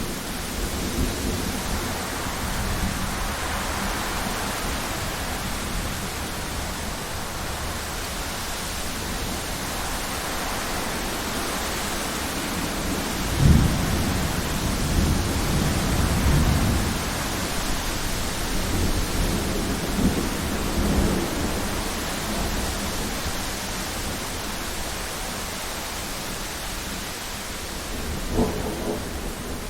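Thunderstorm: steady heavy rain with wind swelling now and then, and thunder: a sharp clap about halfway through that rolls on in low rumbles for several seconds, more rumbling a few seconds later, and a short clap near the end.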